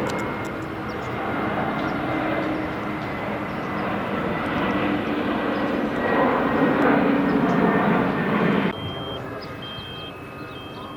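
Airplane engine noise: a loud, steady rumble that builds to a peak and then cuts off abruptly near the end, leaving a quieter background with a short high beep repeating.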